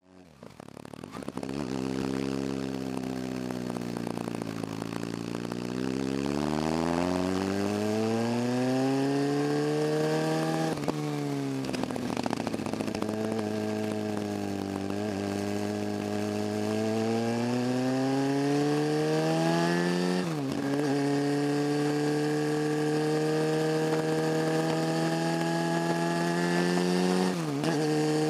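Motorcycle engine pulling up a mountain road, heard from on the bike. The sound comes up over the first second or two. Its pitch climbs steadily in each gear and drops sharply at three upshifts: about a third of the way in, about two-thirds in, and near the end.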